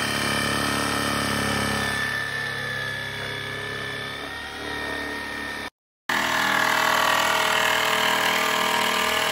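Corded electric jigsaw running steadily, its motor whining as it cuts a wooden board. After a sudden break about six seconds in, another power tool, a drill driving screws, runs steadily.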